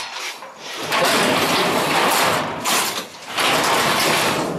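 Lawn-tractor racer's engine run up hard in loud bursts, starting about a second in and dropping off briefly near the three-second mark.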